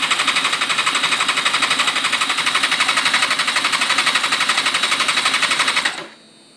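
Electric starter cranking a Suzuki GSX-R 600 four-cylinder engine that turns over but does not fire, in a rapid, even pulse that stops abruptly about six seconds in. The injectors are out of the engine and spraying, so it gets fuel; the owner concludes it is not getting spark.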